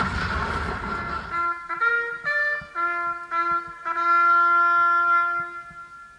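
A lone bugle sounding a slow ceremonial call: a few short notes moving between two pitches, then one long held note that fades away. A rushing noise cuts off about a second in.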